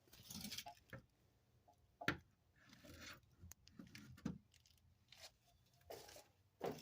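Near silence, broken by a few faint, scattered clicks and brief rustles.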